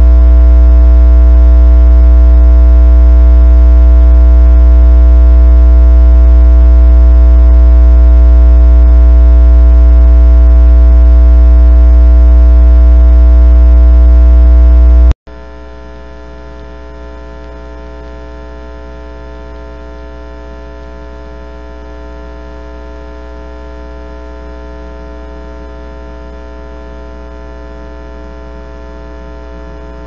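Steady electrical hum with many evenly spaced overtones in a trail camera's recording, very loud at first, then cutting abruptly about halfway through to a much quieter hum.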